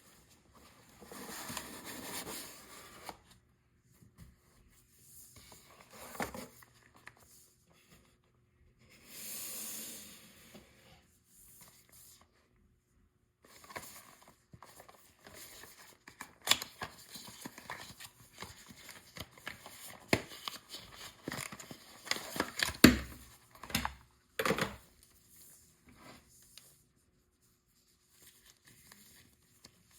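Cardboard and plastic packaging being handled and opened by hand: two long swishes of tearing or sliding, then scattered rustling, crinkling and clicks, with a sharp knock near the loudest point.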